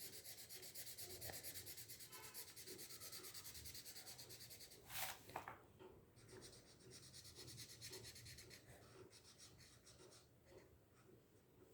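Faint scratching of a felt-tip marker being worked back and forth on paper to fill in colour, in quick even strokes of about three a second, with one short louder sound about five seconds in.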